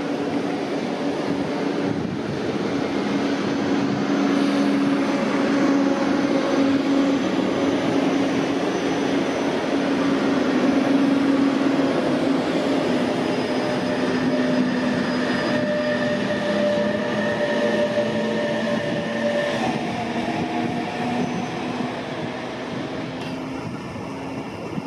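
Regional-Express train of double-deck coaches hauled by a DB class 146 (Bombardier TRAXX) electric locomotive rolling slowly past, with wheels rumbling on the rails and a steady hum and whine of several held tones. It grows slightly louder toward the middle and eases off near the end.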